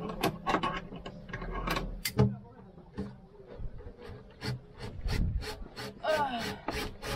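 Irregular sharp clicks and knocks with rubbing, from gear and tools being handled by hand on a sailboat's cockpit, coming faster from about five seconds in.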